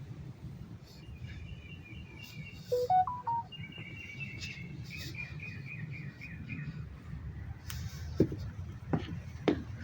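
Birds chirping in two quick runs of rapidly repeated high notes, with a short rising series of louder notes about three seconds in, over a steady low rumble. A few sharp knocks come near the end.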